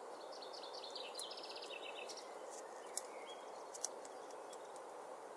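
Outdoor woodland ambience: a steady background hiss with small birds chirping, a run of quick high chirps and a short rapid trill in the first two seconds. Two sharp clicks come about 3 and 4 seconds in.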